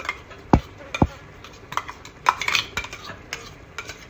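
Metal spoon clinking and scraping against a steel cooking pot and bowl as a thick paste is scraped into the masala, with two dull knocks about half a second and a second in, then lighter scattered clinks.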